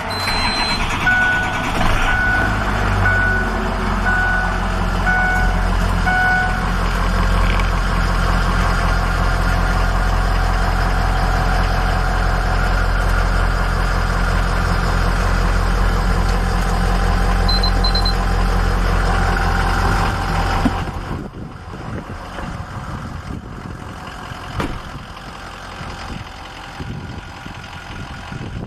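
Ford F-550's diesel engine running at idle, heard from inside the cab, with a dashboard warning chime beeping repeatedly for the first six seconds or so. About twenty seconds in there is a knock, and after it the engine is quieter, heard from outside the truck.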